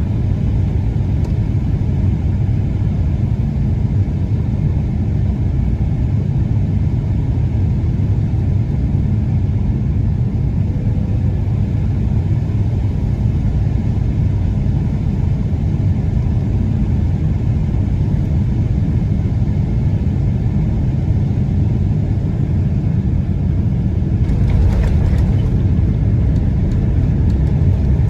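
Steady low rumble of a Boeing 777-200ER's cabin noise on the approach, heard from an economy seat. About 24 seconds in it grows louder, with some brief rattling.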